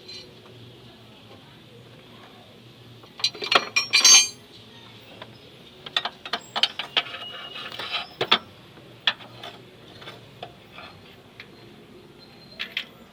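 Metal tools and parts clinking and knocking in irregular sharp clicks during work on a car's engine mount. A loud cluster comes about four seconds in, with further scattered clinks through the rest.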